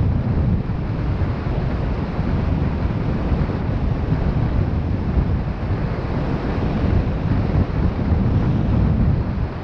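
Steady wind buffeting the microphone, heaviest at the low end, from the airflow of a hang glider in flight.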